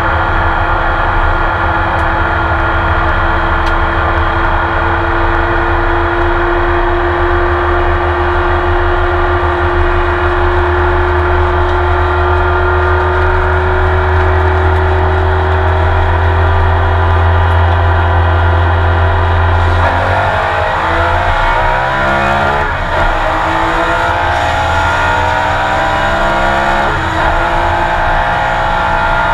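Porsche 911 RSR's flat-six racing engine heard from inside the car, held under load with its pitch climbing slowly for about twenty seconds. About twenty seconds in the revs drop sharply through quick downshifts, then rise and fall repeatedly as the car works through corners.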